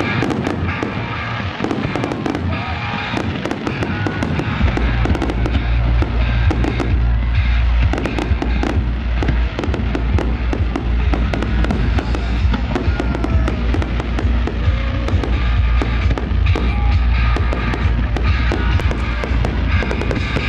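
Fireworks display: a dense run of bangs and crackles from bursting aerial shells, with a heavy low rumble setting in about four seconds in. Music plays underneath.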